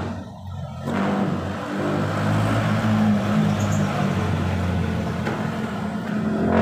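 Gas torch burning, a steady rushing noise that gets louder about a second in as the flame is played over a radiator to heat it.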